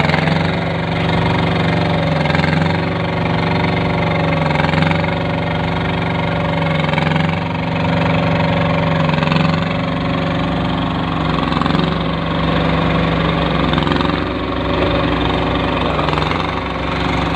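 Small engine driving a concrete curb-stone machine, running steadily, its pitch sagging briefly about every two to two and a half seconds as the load comes and goes.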